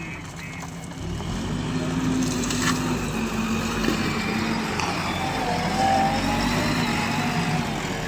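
Diesel engine of a JCB 3DX backhoe loader working under load, getting louder about a second in and holding steady, with occasional knocks. A reversing alarm beeps at an even pace at the start and stops within the first second.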